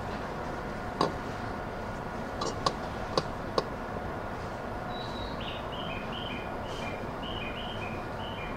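A small bird chirping a repeated two-note phrase, high then lower, through the second half, over the steady hum of a stopped electric train. A few sharp clicks come in the first half.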